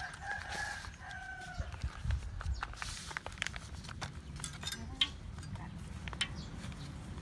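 A chicken calls twice in quick succession in the first second and a half, each call a short held note. Scattered light taps and rustles follow as plastic film is rolled and pressed on a wooden cutting board.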